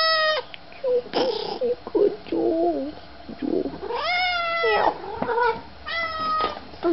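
Domestic cat meowing loudly and repeatedly: a long meow trails off just after the start, then two more long, drawn-out meows come about four and six seconds in, with quieter sounds between them.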